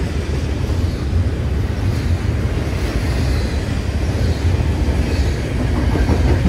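CN Z148 intermodal freight train rolling past, a steady low rumble of its wheels on the rails.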